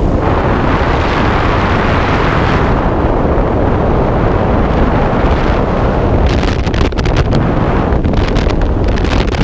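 Freefall wind rushing over a skydiver's camera microphone: a loud, steady roar, with crackling buffeting from about six seconds in.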